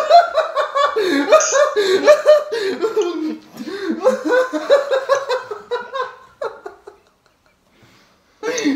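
Men laughing hard in rapid, breathy bursts, falling quiet for about a second and a half near the end before breaking into laughter again.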